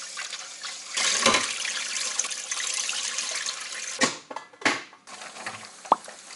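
Kitchen tap running into a pot of rice for rinsing, the water noise growing louder about a second in and stopping around four seconds in, followed by a couple of short splashes or knocks and a brief squeak near the end.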